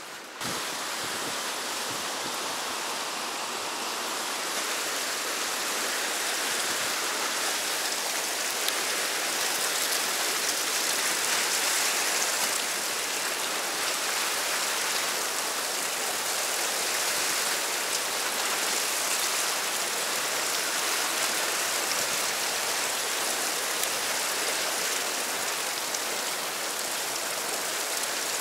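Whitewater rapids rushing through a narrow rock channel: a steady, even rush of turbulent water that grows slightly louder over the first several seconds.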